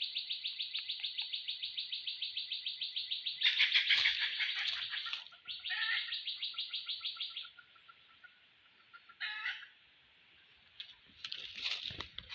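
Wild animal calls: a rapid, evenly pulsed high chirping, about six pulses a second, that stops and starts again. Short lower calls come in at about six and nine seconds.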